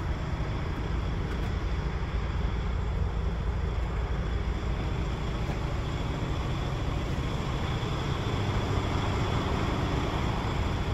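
Paccar MX 12.9-litre straight-six diesel of a DAF XF105 tractor unit idling, heard from inside the cab as a steady low rumble.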